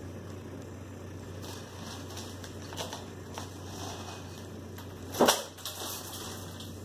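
Newspaper pages rustling and crinkling as they are handled, with a few light crackles and one louder crackle about five seconds in, over a steady low room hum.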